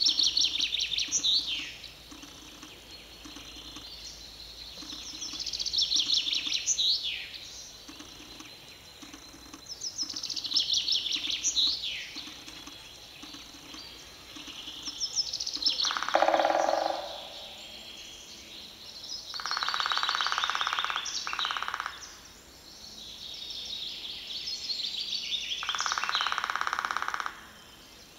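A songbird singing, repeating a phrase of about two seconds every few seconds, each phrase a fast run of high notes sweeping downward. A few short patches of rushing noise, the loudest about two-thirds of the way through, start and stop abruptly between the phrases.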